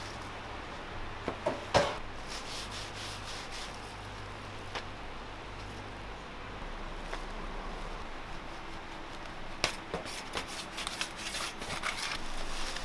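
A plastic-gloved hand rubbing and smearing spiced sauce over thin flatbreads, making a soft, scratchy rustle. There are a few sharp knocks, the loudest about two seconds in and another near ten seconds, over a steady low hum.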